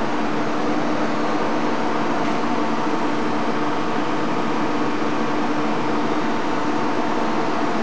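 Sandretto plastic injection moulding machine running with a steady mechanical hum and a low drone under it.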